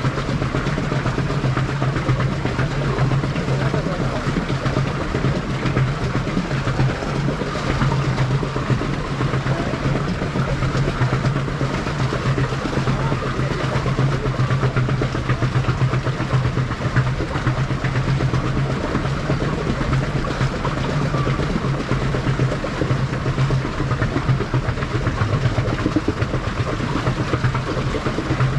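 A boat under way on calm water: a steady low hum with water rushing and sloshing along the hull.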